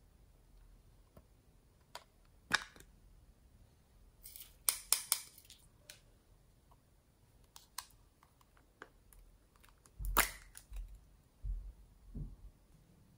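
Sharp plastic clicks and snaps from small plastic containers being handled and opened, with a quick cluster of clicks about four to five seconds in and the loudest snap about ten seconds in, followed by a few soft thumps near the end.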